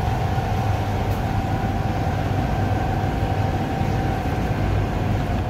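Steady machinery hum of commercial kitchen equipment running, with a low drone and a constant mid-pitched whine on top.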